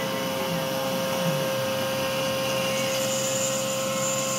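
Langmuir Systems MR-1 CNC mill slotting CPM 154 stainless steel with a 4 mm four-flute end mill at 8,000 rpm: a steady cutting whine with one clear high tone over a constant hiss.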